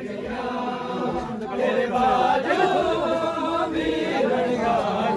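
A crowd of men chanting a Muharram mourning lament (noha) together, many voices overlapping. The chant grows louder about a second and a half in.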